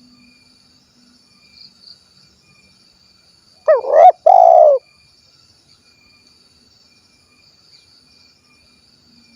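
Spotted dove (tekukur) giving one cooing call about four seconds in: a quick short note followed by a longer one. A steady insect buzz goes on faintly underneath.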